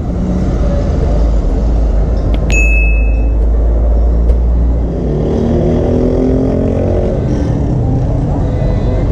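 Motorcycle engine running as the bike rides slowly along a town street, easing off in the second half as it slows.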